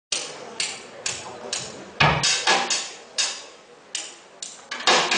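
Live percussion from the stage band's drum kit: bright, sharp strikes, about two a second at first and then in a quicker, uneven pattern, with a hall echo on each hit.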